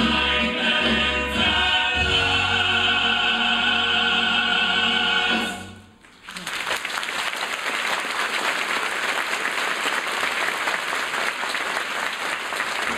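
Male chorus and orchestra holding the big final chord of a stage-musical number, cut off about halfway through; after a short gap, audience applause.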